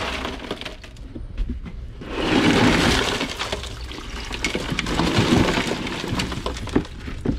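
Ice, water and shrimp sliding and clattering out of a tipped ice chest into a kitchen sink. There is a louder rush about two seconds in, then smaller clinks and slithers as the catch slides out.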